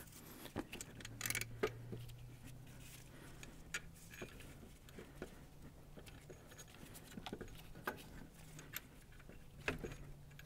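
Faint scattered clicks and rustling of a gloved hand handling the alternator's metal mounting bolts in the engine bay, over a faint low steady hum.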